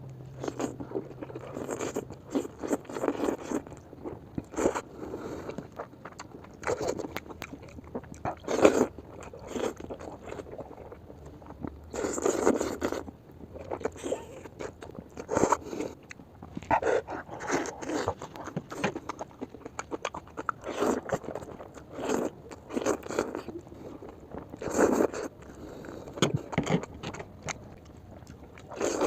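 Slurping and chewing of noodles, in repeated bursts every second or two.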